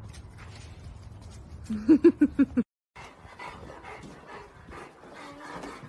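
A dog giving a quick run of about six short, pitched barks about two seconds in. The sound then stops abruptly for a moment, followed by faint rustling and clicking.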